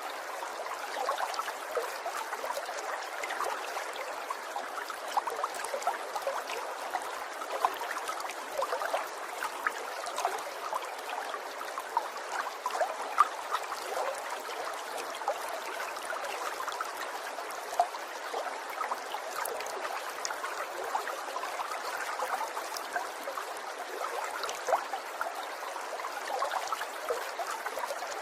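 Small stream of water trickling and babbling steadily, with many tiny splashes and gurgles over a continuous rushing.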